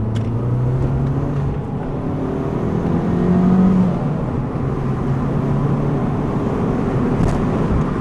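Fiat 500 cruising in fifth gear at about 75 mph, heard from inside the car: a steady low engine hum under road and wind noise, swelling slightly about three seconds in. Its new stainless steel cat-back exhaust gives no drone at this cruising speed.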